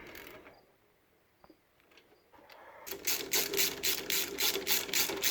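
Socket ratchet wrench clicking rapidly, about four to five clicks a second, as a bolt on the alternator mounting is turned; after a few light clicks and a near-quiet stretch, the ratcheting starts about three seconds in.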